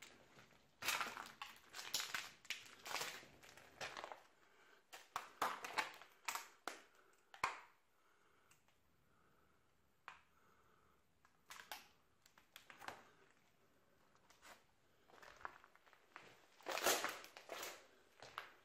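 Footsteps crunching and scraping on grit and rubble underfoot, in irregular clusters with a pause of a few seconds midway.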